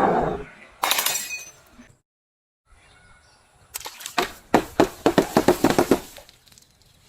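Glass breaking and being crushed: a burst of cracking about a second in, then after a short break a dense run of sharp cracks and crunches lasting about two seconds.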